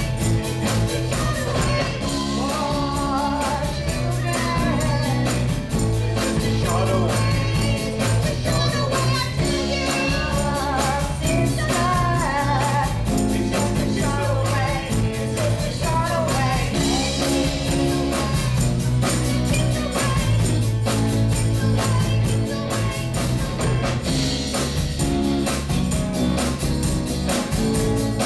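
Live rock-and-roll band playing: a woman singing over electric guitars and a steady drum beat.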